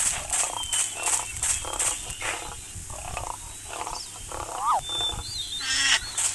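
Wild animal calls in rapid repeated bursts, with a quick up-and-down whistle about three-quarters of the way in and a short rattling burst near the end.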